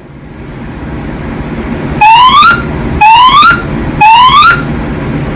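Fire alarm evacuation signal sounding three rising whoop tones, each about half a second long and a second apart, starting about two seconds in. This is the temporal-three evacuation pattern, played between the system's recorded voice messages over a steady low hum.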